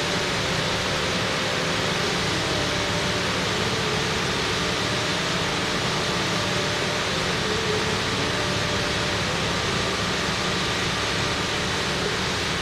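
A steady rushing hiss of background noise, even throughout, with faint wavering tones beneath it.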